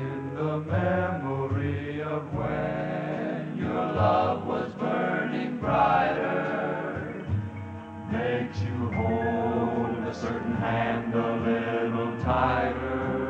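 Male vocal group singing together, several voices holding notes and changing chords every second or so.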